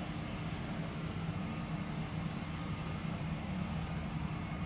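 Steady, even rumble of jet airliner engines, with a faint high whine above it.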